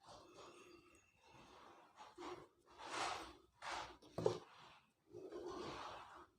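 Faint, soft rustling of sewing thread being wound by hand around a wreath ring, in irregular strokes of about half a second to a second, with one sharp tap about four seconds in.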